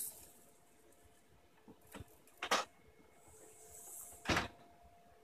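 Pellet rifle being worked by hand to cock and load it: two short mechanical clacks almost two seconds apart, the second preceded by a soft rushing hiss.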